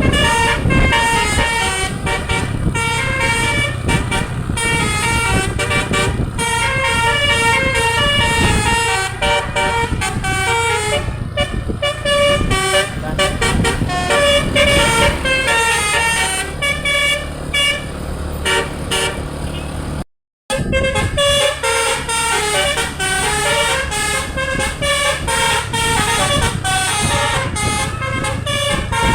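A DAV musical air horn ('telolet basuri') playing a quick melody of short changing notes over a steady low engine rumble. The sound drops out briefly about twenty seconds in.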